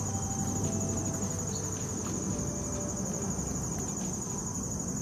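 Insects trilling: a steady, finely pulsing high drone that does not let up, over a low steady background rumble.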